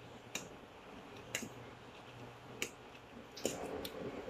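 A metal utensil clicking against a stainless steel pan while stirring noodles: a few separate clicks about a second apart, then a quicker run of clicks near the end, over a faint steady low hum.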